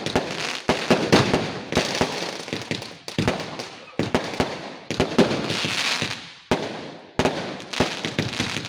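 Fireworks and firecrackers going off in rapid succession: sharp bangs and crackles, each trailing off, one after another with hardly a gap.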